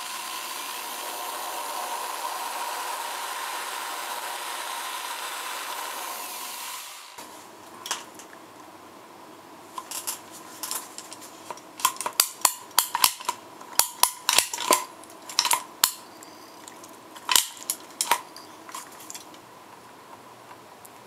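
Power drill with a wood bit running steadily for about seven seconds as it bores through the dried glue over a foundation crack. After that come a series of sharp clicks from a caulking gun being squeezed to inject sealant into the drilled holes.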